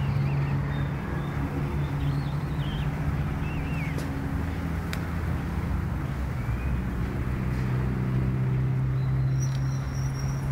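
Small engine on a homemade motorized bicycle-tricycle idling steadily at an even pitch, with no revving. Faint bird chirps are heard now and then.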